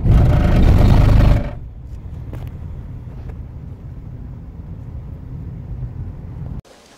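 Car in motion: a low road-and-engine rumble heard inside the cabin, loudest for about the first second and a half, then steady and quieter until it cuts off abruptly near the end.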